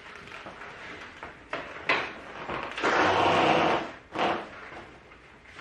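Knocks and rustling as a rider swings a leg over a motorcycle and settles onto its leather seat, with a loud, rough rubbing noise lasting about a second near the middle.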